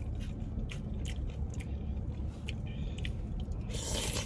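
Close-miked chewing: a person chewing food, with many small wet clicks and light crunches. The chewing runs over a low steady rumble, and a brief rustling hiss comes in near the end.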